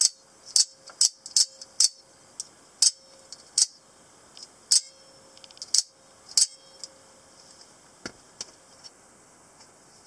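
Spring-loaded out-the-front automatic knife being fired and retracted again and again. Its blade snaps in and out with sharp metallic clicks, about ten loud ones roughly half a second apart, then a few fainter clicks near the end.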